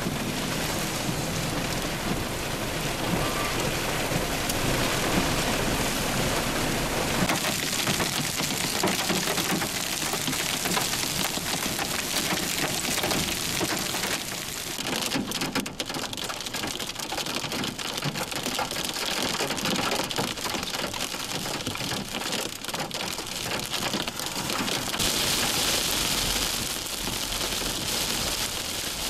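Heavy hail and rain pelting down: a dense, continuous clatter of hailstones. It eases briefly about halfway through and turns harsher near the end.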